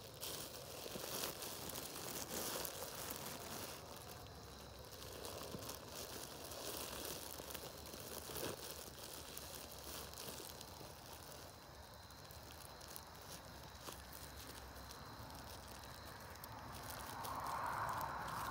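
Clear plastic bag crinkling and rustling as it is twisted and squeezed around packed cut grass, pressing the air out so the grass can ferment into silage. It grows louder near the end.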